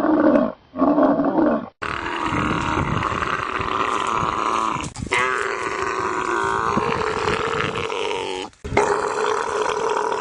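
Camels bellowing and growling in long, wavering, gurgling calls. Several separate calls follow one another, with abrupt breaks about two, five and eight and a half seconds in.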